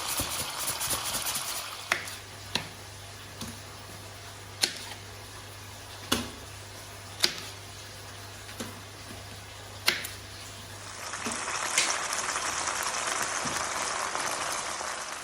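Tomatoes, onions and garlic cooking in a frying pan: a hissing simmer, dying down after about two seconds. A series of sharp clicks follows, and the sizzle rises again in the last few seconds.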